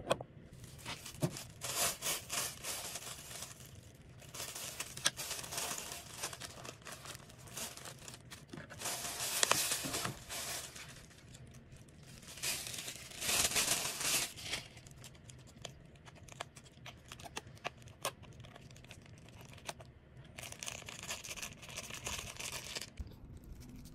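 Thin plastic food bags crinkling and rustling in several bursts as takeaway noodles are unpacked, with small clicks and taps between them; near the end a small plastic bag of sauce is worked open.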